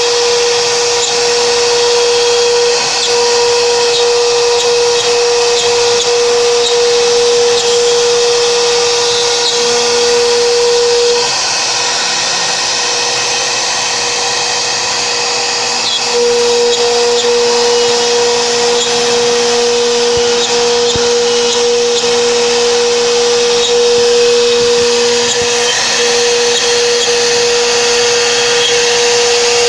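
CNC router spindle running at speed while routing a wardrobe door panel: a steady high whine over a cutting hiss. The whine weakens and the sound drops slightly for a few seconds in the middle, then returns.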